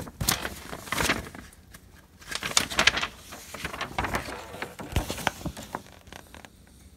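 Paper instruction booklet pages being turned and handled: a run of irregular crisp rustles and crackles, loudest a little before the middle, dying away near the end.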